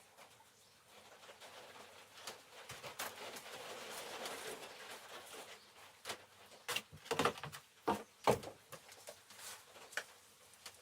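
Quiet handling noises as seed pots and seeds are moved about: a soft rustling hiss, then a series of light knocks and clicks about two-thirds of the way in.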